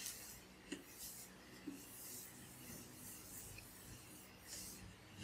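Blackboard eraser rubbing across a chalkboard in faint, repeated swishing strokes, about one a second, with a small tap under a second in.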